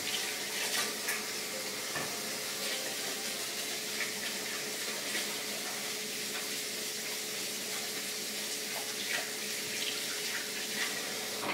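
Kitchen sink faucet running steadily while hands are washed under it. It is turned on suddenly at the start and shut off at the end.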